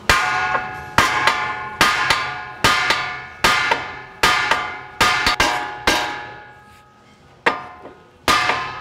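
Hammer blows on the steel steering knuckle of a 2003 Acura MDX, about one a second with a short pause near the end, each ringing out and dying away. The tapping distorts the knuckle to break the tapered lower ball joint stud loose from its seat.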